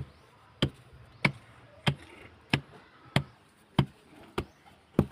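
Sharp knocks repeating at an even pace, about one and a half a second, nine in all.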